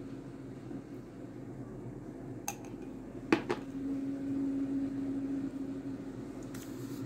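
Kitchenware clinking: four short, sharp clinks, the loudest a little before halfway, over a steady low hum.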